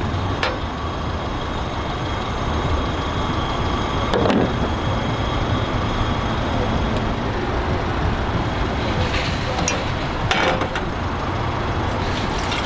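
A Coleman Triton propane camp stove being lit: an igniter click about half a second in, then a few knocks of the grate and pot as the flame is set, over a steady low rumble. Near the end, water starts pouring from a jug into the saucepan.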